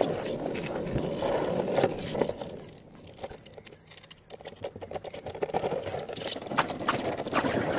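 Longboard rolling over pavement with a clicking rattle from the board, of unknown cause; it fades for a second or so in the middle and then builds again.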